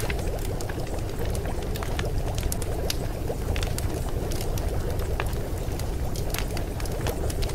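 Steady running-water ambience, a constant bubbling wash with scattered small clicks and pops through it.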